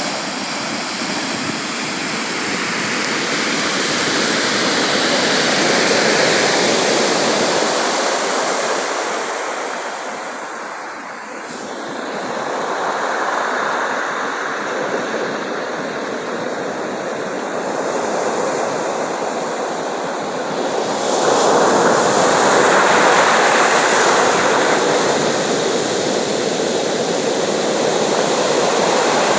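Sea waves breaking and washing on the shore, a steady rushing surf that swells and eases every several seconds, loudest near the end.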